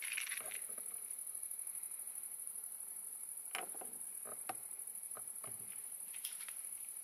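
Crickets chirping in a steady, very high, rapidly pulsing trill, with a few faint clicks about halfway through.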